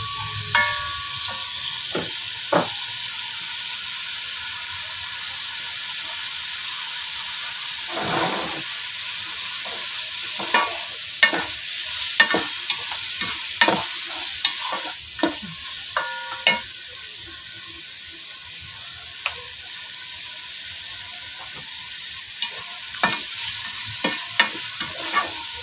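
Diced bacon sizzling as it fries in melted butter in a pot, with a wooden spatula stirring it and knocking against the pot now and then in irregular clicks.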